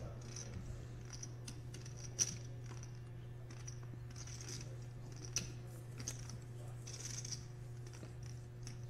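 Poker chips clicking as players riffle and handle their stacks, a run of light, irregular clicks with a couple of sharper ones about two and five seconds in. A steady low hum runs underneath.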